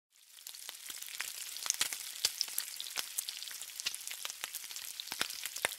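Food frying on a hot flat-top griddle: a steady sizzle full of small pops and crackles, starting about half a second in.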